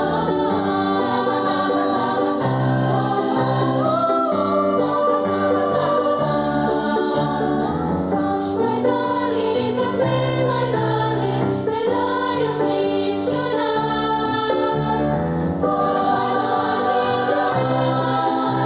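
Live band music with several voices singing together over a steady bass line.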